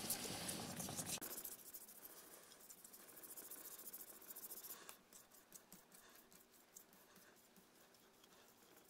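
Micro-Mesh 4000-grit sanding pad rubbed in short one-way strokes over a filled chip on a ceramic plate, a fine polishing stage where the patch starts to shine. The rubbing is clearest in the first second, goes faint, and stops about halfway through, leaving a few faint ticks.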